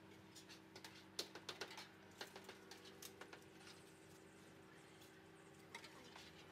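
Near silence with a faint steady hum and scattered light clicks and taps, a cluster between one and three seconds in and a couple more near the end.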